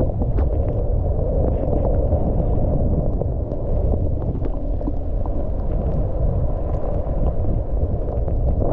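Steady, muffled rushing of skis running through deep powder snow, mixed with wind on the microphone, which is dulled by snow packed into it.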